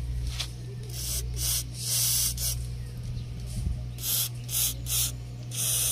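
Aerosol can of WD-40 spraying onto a sticky, rusted hood-lock mechanism in about seven short hissing bursts, the longest about two seconds in.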